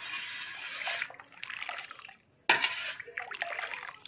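Warm sugar syrup being stirred to mix in menthol, a continuous liquid stirring sound. It cuts out briefly a little over two seconds in, then resumes.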